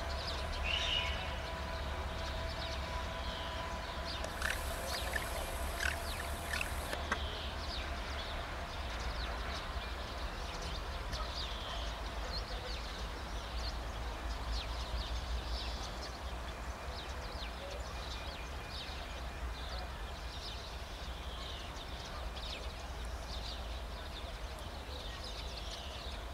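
Small birds chirping over a steady low rumble, with a faint hum from the locomotive that fades away over the first several seconds as it moves off.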